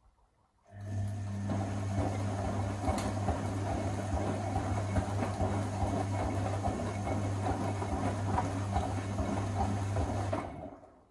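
Electra Electronic 1100 front-loading washing machine in its wash tumble: the drum motor starts about a second in and hums steadily while the drum turns the wet towels, with water and laundry sloshing, then stops shortly before the end.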